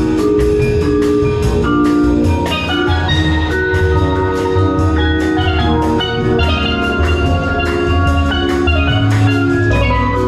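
Background music: an upbeat tune with mallet-percussion notes over a steady drum beat.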